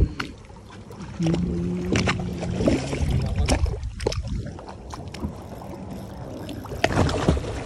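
Sea water sloshing and splashing against a small boat's side, with wind noise and several sharp knocks, the loudest near the end. A brief steady hum sounds from about a second in to nearly three seconds.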